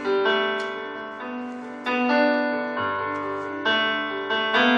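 Electronic keyboard playing sustained chords, striking a new chord about every second, as accompaniment to a worship song.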